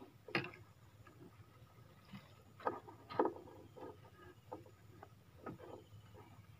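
Scattered knocks and taps in a small boat as fishing tackle is handled, with a few louder knocks about three seconds in.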